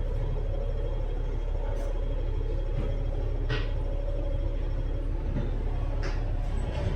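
Inside a running bus: a steady low engine and road rumble with a constant hum, and a couple of short rattles, one about three and a half seconds in and another about six seconds in.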